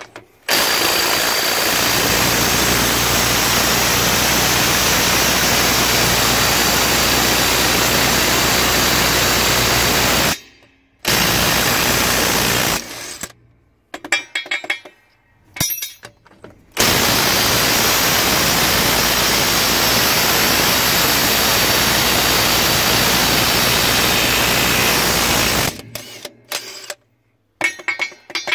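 Makita 18 V cordless impact wrench hammering on tight wheel nuts, a loud continuous rattle held in two long runs of about ten seconds each, with short bursts between them and near the end as nuts are broken loose and run off.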